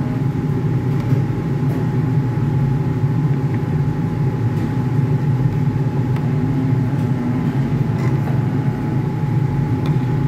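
A steady, loud machine hum with a thin constant whine over it, with a few faint clinks of a metal ladle against the steel pot as the curry is stirred.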